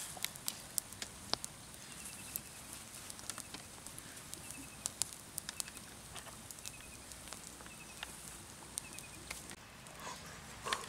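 Wood fire crackling with scattered sharp pops and snaps, while a small bird repeats a short chirp of three or four quick high notes every second or two.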